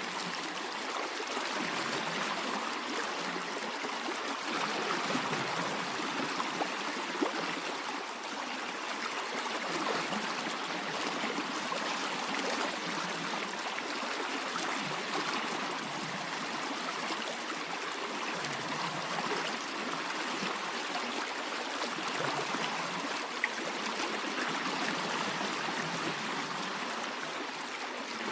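Stream water flowing and trickling steadily, with two brief faint clicks.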